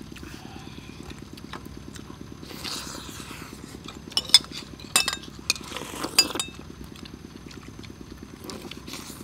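Spoons clinking and scraping on plates while rice and curry are eaten, with a few sharp ringing clinks in the middle.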